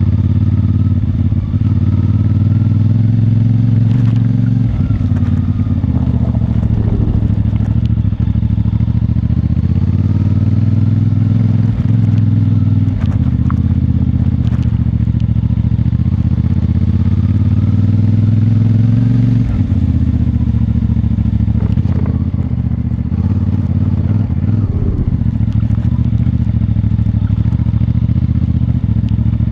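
CFMoto 450MT's 449 cc parallel-twin engine running under way at a fairly steady pitch, with scattered sharp knocks and clatter from the bike.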